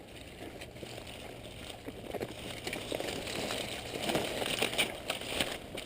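Rustling and crackling that grows louder, with irregular sharp crackles coming thicker in the second half.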